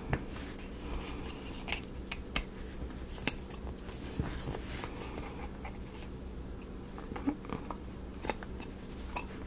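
Irregular small clicks and taps of laser-cut wooden model-kit pieces being handled and pressed into place, a few seconds apart, over a steady low hum.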